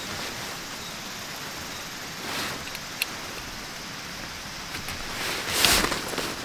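Nylon tent fabric rustling as it is handled while a tent pole is worked into it, over a steady hiss. A single sharp click comes about halfway through, and the fabric rustle is loudest near the end.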